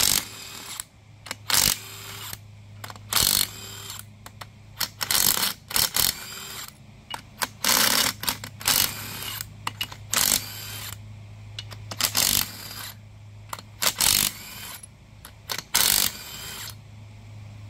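Cordless drill-driver spinning bolts out of an engine cylinder head in a dozen or so short bursts of under a second each.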